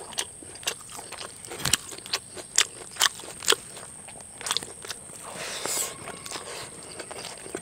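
Close-up eating sounds of a person eating chicken curry and rice by hand: wet lip smacks and chewing clicks, roughly two a second. About two-thirds of the way through there is a brief rustling scrape as fingers scoop rice off a banana leaf.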